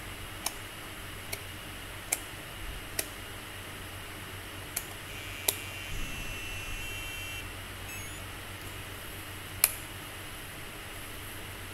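Scattered single clicks of switches and buttons being worked on a Jumper T8SG radio transmitter, with a short run of stepped electronic beeps about five to seven seconds in as it powers up.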